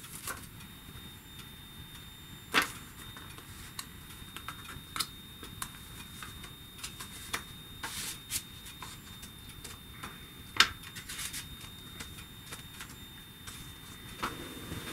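Paper and card handling on a table: autograph cards and paper envelopes rustling and tapping as they are slid together, with two sharper taps, about two and a half seconds in and again about ten and a half seconds in.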